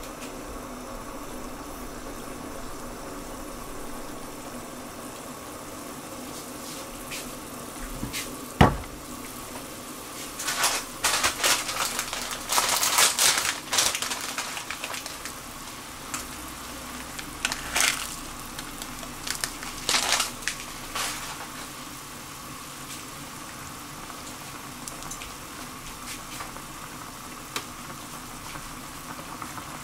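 A pot of spicy tofu broth boiling steadily on the stove. A sharp click comes about eight seconds in, followed by a run of louder crackling, rustling noises in the middle.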